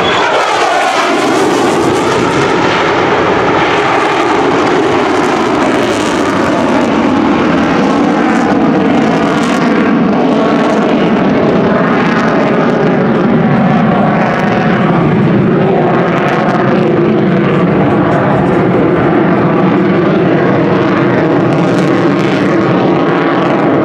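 Single Pratt & Whitney F135 afterburning turbofan of an F-35A Lightning II, loud and continuous through its demonstration manoeuvres with the afterburner lit. The jet noise wavers and sweeps in pitch as the aircraft moves across the sky.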